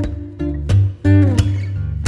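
Background music on acoustic guitar, plucked and strummed notes with a sliding note about halfway through.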